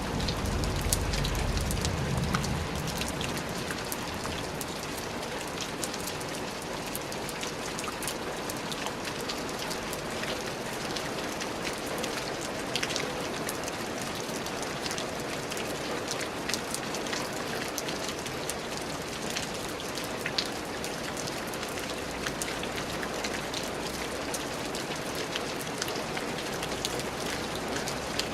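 Steady rain falling, a constant hiss with many separate drops ticking through it. A low rumble sits under it for the first couple of seconds.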